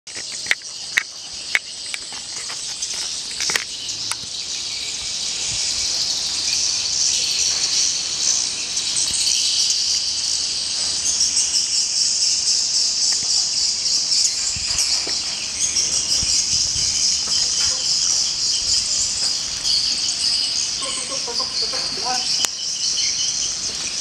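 A large flock of edible-nest swiftlets twittering: dense, high-pitched chirping that builds over the first several seconds and then keeps up steadily. Three sharp clicks come in the first two seconds.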